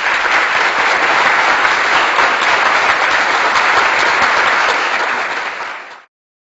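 Crowd applause from a stock sound-effect clip: steady, dense clapping that cuts off abruptly about six seconds in.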